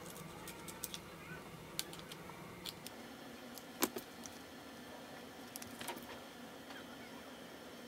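Small scissors snipping a nail sticker sheet, with faint scattered clicks of handling the cut pieces. The sharpest click comes about four seconds in.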